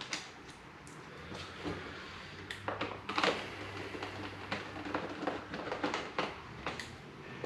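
Scattered light clicks and taps of hand tools and plastic parts as the screws either side of a motorcycle's rear light and indicator section are undone and the section is taken off, over a faint low hum.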